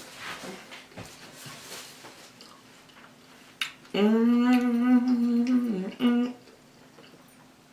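A person humming a long, steady-pitched "mmm" with a mouthful of food, about two seconds long starting around the middle, followed by a short second hum. Faint chewing comes before it.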